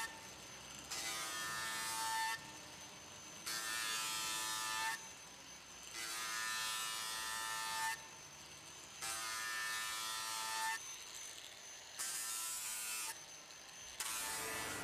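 Handheld grinder with an abrasive wheel working the steel roof frame of a car body in about six passes of one to two seconds. Each pass is a loud grinding hiss with a high motor whine, falling back to a quieter run between passes.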